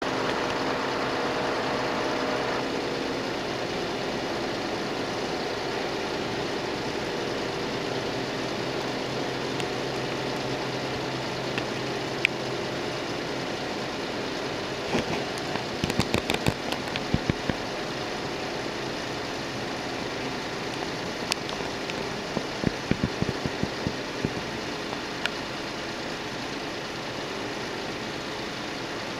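An engine running steadily with a low hum whose pitch shifts a couple of seconds in, broken by scattered sharp clicks that bunch up about halfway through and again near three-quarters of the way.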